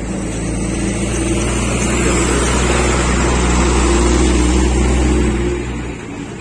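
A goods truck driving past close by, its engine running and tyres on the road, growing louder to a peak about four seconds in and then falling away near the end.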